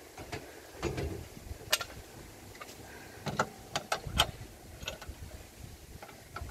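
Sharp metallic clicks and knocks as a high-lift jack is seated and clamped into its roof-rack mounting brackets, a scattered handful of strikes with the loudest about four seconds in.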